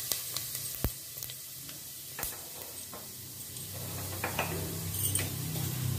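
Fennel seeds and cinnamon sizzling in hot oil in a pan, with a few sharp pops and crackles. A low steady hum comes in near the end.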